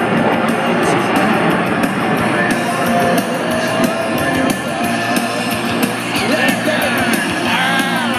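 Rock music with singing played over public-address loudspeakers.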